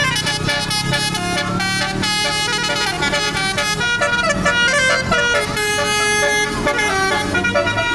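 Indonesian bus 'telolet' horn, a multi-tone air horn playing a quick tune of short stepping notes, over the low hum of the bus engine running.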